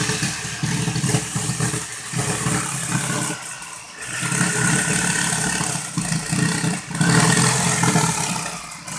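Jigsaw cutting through an MDF sheet, its motor and reciprocating blade running steadily, with brief drops in loudness about two, four and six seconds in as the cut slows or pauses.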